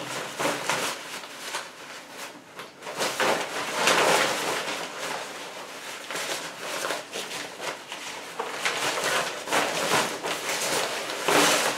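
Rustling of a polyester stroller bag as a folded umbrella stroller is slid into it, with a few light knocks of the stroller frame.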